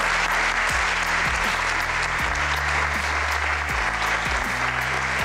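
Audience applauding, with background music playing under the clapping.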